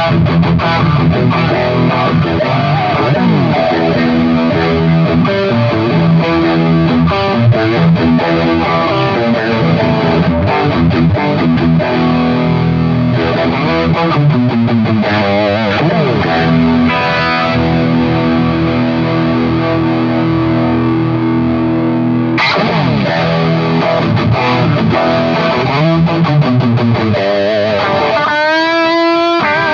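Electric guitar played through an M-Vave Mini-Amp preamp pedal on a distorted amp setting. It holds sustained chords with a few slides, and near the end plays lead notes with wide vibrato.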